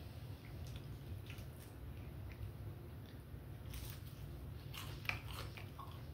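A person chewing and biting food close to the microphone: scattered wet smacks and small crackles that are busiest around four to five seconds in, over a steady low hum.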